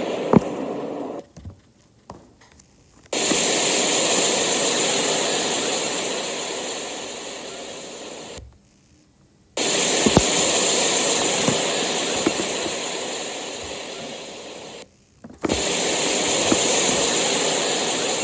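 Impact-and-rumble sound effects for a planetary crash: loud rushing hiss that cuts in suddenly three times and dies away slowly each time over about five seconds, with short silent gaps in between.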